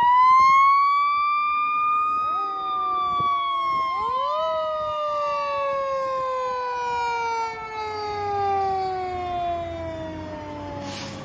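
Fire engine siren winding up to a high wail and then slowly sliding down in pitch, the slow fall of a coasting mechanical siren. It is spun up again twice in the first few seconds, each time at a lower pitch. Near the end the truck's engine rumbles as it pulls past.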